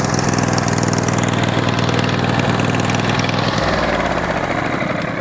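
Sawmill's small engine running steadily. About three and a half seconds in its note drops, and it begins to wind down.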